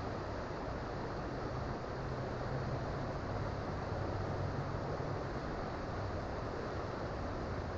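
Creek water flowing over rocks: a steady, unbroken rush with a low rumble underneath.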